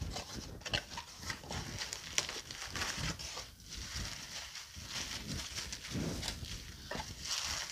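Bubble wrap and a cardboard box being handled: the box is opened, and plastic bubble wrap crinkles and rustles in irregular crackles as a wrapped candle is pulled out and unwrapped.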